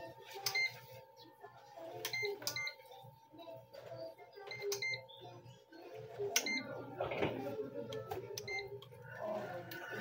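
Digital clamp meter being handled: several sharp clicks, some with a short beep, spaced irregularly a second or more apart, over faint background music.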